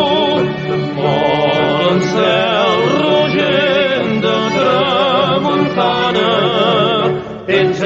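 Choral singing with strong vibrato over instrumental accompaniment, several voices weaving around each other; a brief break near the end before it carries on.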